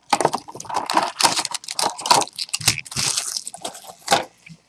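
Packaging of a sealed trading-card box being torn open and handled: irregular crinkling and tearing that stops just before the end.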